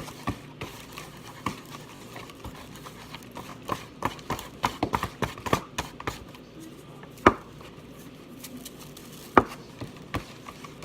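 Spoon clicking and knocking against a dish while a slime mixture is whisked fast to work up bubbles, in irregular quick taps with a busy run about four seconds in and two louder knocks later on.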